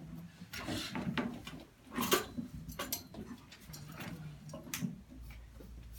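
Classroom room noise of children sitting at their desks: scattered small knocks, clicks and paper rustles, the strongest about two seconds in.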